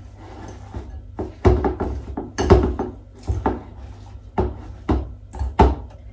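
Kitchen utensil and dishware knocks and clinks: a string of irregular sharp taps against a bowl, about half a dozen of them loud, over a steady low hum.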